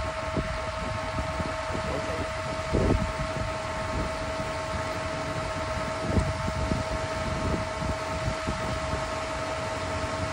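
Duramax diesel boom truck running with a steady high whine over a low rumble, unchanging in pitch. Low gusts of wind hit the microphone about three and six seconds in.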